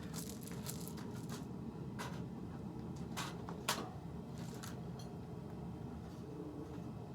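A steady low hum with scattered light clicks and scrapes, the sharpest click about three and a half seconds in.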